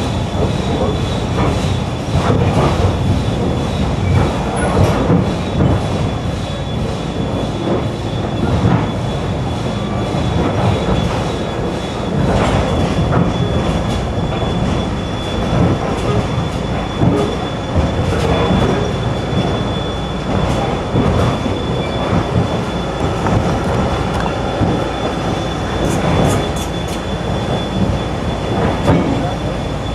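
Steam locomotive New Hope Valley #17 pulling a train, heard from a car riding behind it: continuous rumble and rattle of the moving train with irregular knocks and a thin steady high tone.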